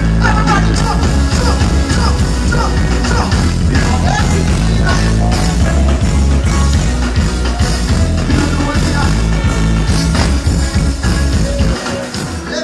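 Live dancehall music played loud over a festival sound system, heavy on bass, with a voice singing over the beat. The bass cuts out near the end.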